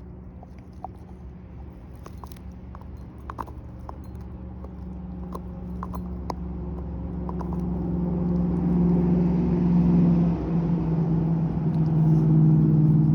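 A few small clicks, then a vehicle engine's steady hum that grows much louder over several seconds and stays loud.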